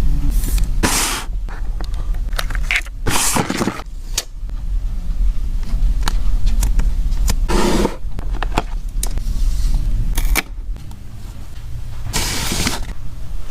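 Irregular rustling, scraping and handling noises from craft materials being worked by hand, over a steady low rumble.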